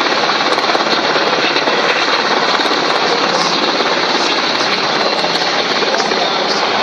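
Black Hawk helicopter hovering low, its rotor blades beating in a loud, steady, rapid chop.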